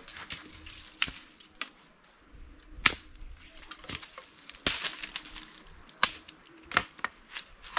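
Dry sticks cracking and knocking as they are broken up and handled for firewood: a run of sharp, irregular cracks about a second apart, the loudest about three seconds in.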